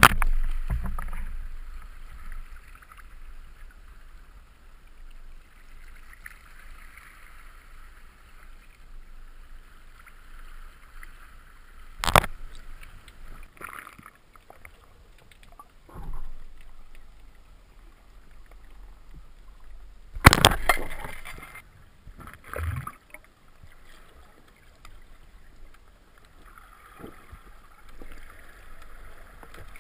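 Underwater ambience heard through an action camera's waterproof housing during a spearfishing dive: a steady muffled wash of water. A few sudden loud bursts of rushing noise break through it, the biggest about twelve seconds in and around twenty seconds in.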